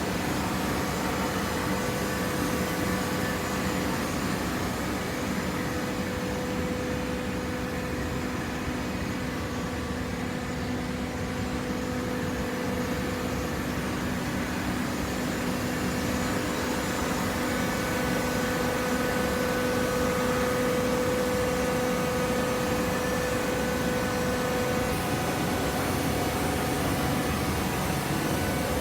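Cardboard baler running: a steady machine hum with a constant whine over a noisy bed, growing a little louder for a few seconds past the middle.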